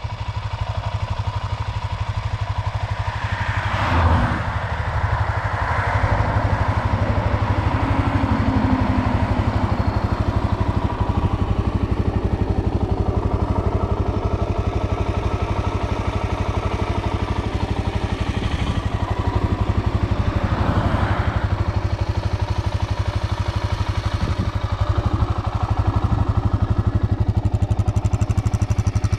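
Suzuki DR-Z400S's single-cylinder four-stroke engine idling steadily, with a short swell in level about four seconds in.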